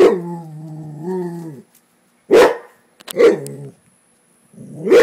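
Rottweiler barking: a sharp bark that runs into a long, low, drawn-out cry with a growl to it, then two more sharp barks, and another right at the end.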